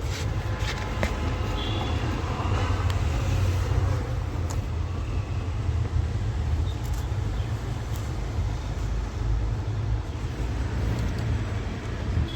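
Steady low vehicle rumble with a few small clicks as a blade fuse is handled and pushed into the car's fuse box.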